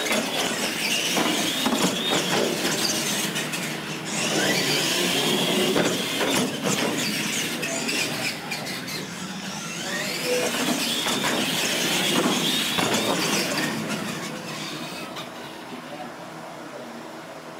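Electric R/C monster trucks racing on a concrete floor: a high whine of motors and gears rising and falling in three runs, with squeals and knocks from tyres and landings. It fades after about fourteen seconds.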